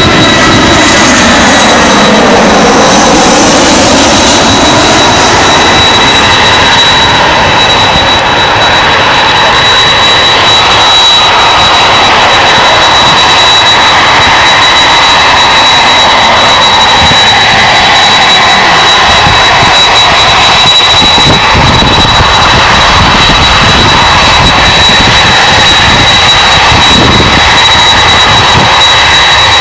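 Jet engines of a Boeing 747-400 Freighter running as it taxis. A steady high whine sits over a loud rushing noise, and lower tones dip and climb back in the first few seconds.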